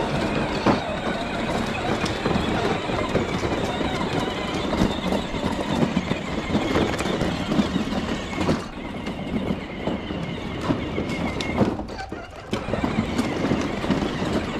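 Kids' ride-on toy vehicle rolling over hard, uneven ground, its plastic wheels and body rattling and clattering continuously, easing off briefly near the end.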